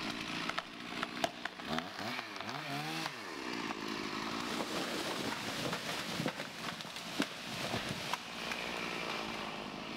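Stihl 460 two-stroke chainsaw running while felling an aspen, its engine pitch dipping and climbing again about two seconds in. A few sharp cracks are scattered through it.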